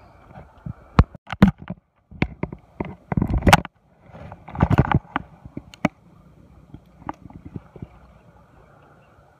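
Irregular sharp clicks, knocks and rubbing from hands handling fishing tackle close to the microphone, loudest in two clusters about three and five seconds in, over a steady low hiss.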